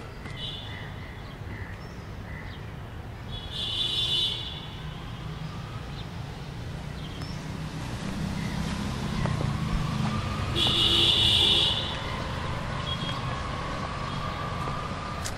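Busy street traffic with a steady low rumble and a faint whine slowly rising in pitch. Two loud, shrill vehicle horn blasts cut through it, a short one about four seconds in and a longer, louder one near eleven seconds.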